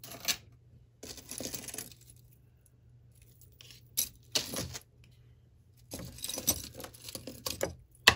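Metal chain jewelry clinking and jangling in several short bursts as it is handled, with a copper chain bracelet set down on a hard tabletop.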